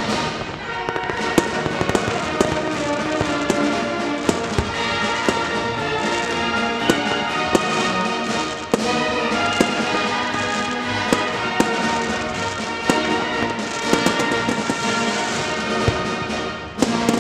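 Fireworks bursting overhead with sharp bangs, roughly one a second, over continuous music.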